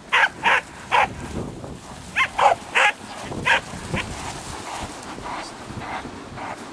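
A dog barking: about eight short, sharp barks in two quick runs over the first four seconds, then only fainter sounds.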